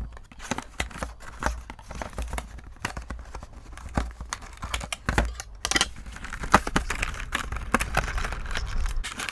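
Small cardboard box being cut open with a knife and its flaps and packaging pulled apart: an irregular run of cardboard scraping, tearing and crinkling with small clicks.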